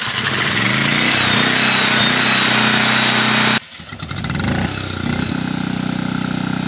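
Westinghouse 13,500-watt portable generator running steadily in the open, then, after a sudden cut a little over halfway in, running noticeably quieter and more muffled, shut inside its sound-deadened enclosure.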